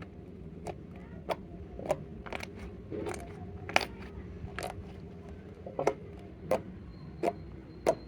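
Slime being squeezed and worked by hand, giving a string of sharp wet clicks and pops about every half second to a second, over a low steady hum.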